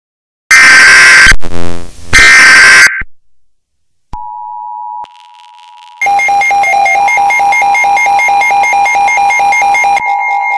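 Emergency Alert System–style alert tones: two loud, harsh screeching bursts about a second in, then after a short gap a steady two-tone attention signal. About six seconds in, a fast pulsing beep of about six beats a second joins it.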